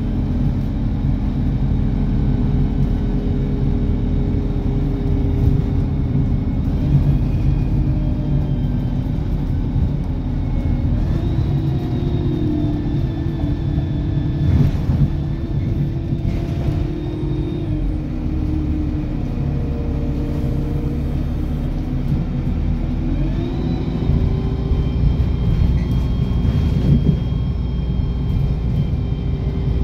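Car engine and road rumble heard from inside a moving car, with the engine note rising as the car picks up speed, once about a third of the way in and again near the end.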